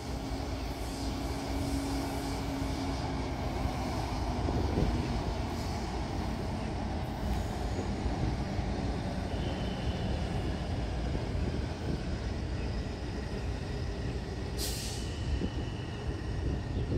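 Taipei Metro Tamsui–Xinyi line train running past on surface track: steady wheel-on-rail and running noise. There is a short high hiss about 15 seconds in and a thin high tone near the end.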